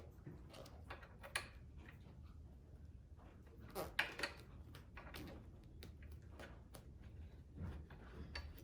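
Scattered light clicks and taps of hands handling plastic tow-mirror parts and a screw, with a small cluster of sharper clicks about four seconds in.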